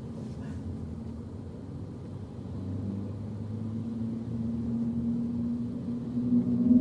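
Car engine running with a low hum and a steady tone that grows louder from about three seconds in, its pitch creeping up near the end as the engine picks up revs.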